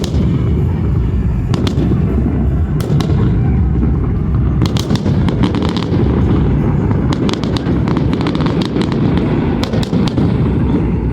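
Fireworks going off: a continuous low rumble of bursting shells, overlaid with rapid crackling pops that come thickest about halfway through and again near the end.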